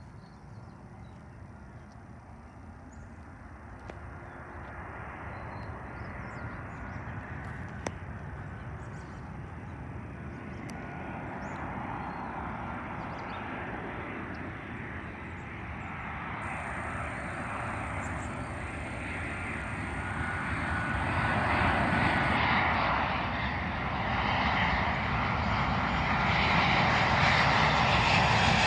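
Boeing 737-700's CFM56 jet engines on landing approach, growing steadily louder as the airliner nears, with a faint thin whine above the rushing noise.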